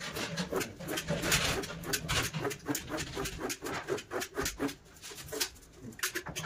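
Rapid, irregular clicks and light knocks over a low steady hum, thinning out near the end.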